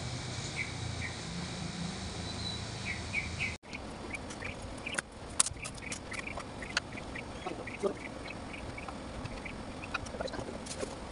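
Small birds chirping in short repeated calls. About a third of the way in, after a cut, scattered sharp clicks and taps from hand work on a rattan cane seat join in.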